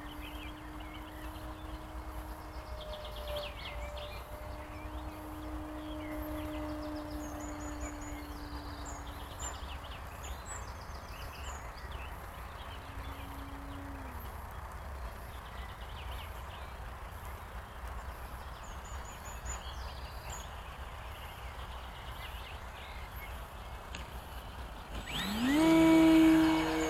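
Electric motor and propeller of a Carbon-Z Cessna 150 radio-control plane droning steadily in flight. About 14 s in the pitch drops away as the throttle comes back, and near the end it rises sharply and grows loud as power is added. Small birds chirp now and then.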